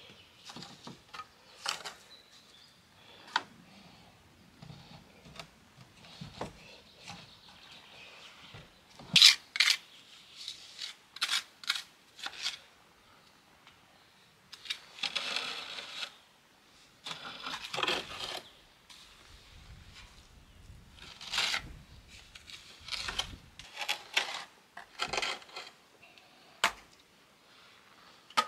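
Small steel trowel tapping and scraping on stone and wet mortar while pointing the gaps in a stone foundation: irregular sharp metallic clicks with a few short scrapes.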